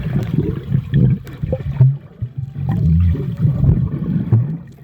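Swimming-pool water sloshing and gurgling, heard muffled and low with little treble, with a few short knocks.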